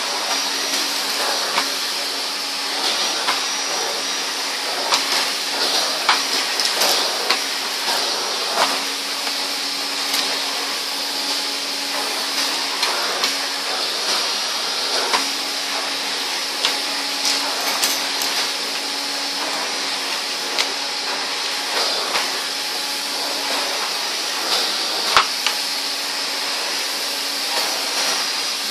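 Hoover Constellation floating vacuum cleaner running steadily with a constant hum and rushing air, sucking debris up through its hose. Irregular sharp clicks and rattles come throughout as bits of debris are drawn up the hose.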